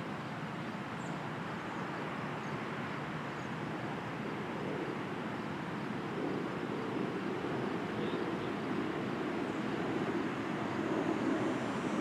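Steady low rumble of a distant aircraft's engines, growing louder in the second half as it approaches.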